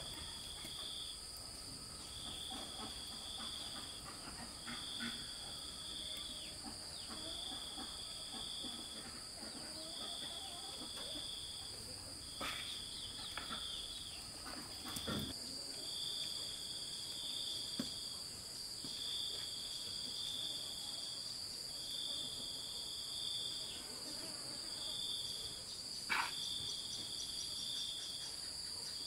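Insects calling: a steady high drone, with a shrill trill of about a second repeating roughly every two seconds. A few faint knocks and rustles, and a short sharp sound near the end.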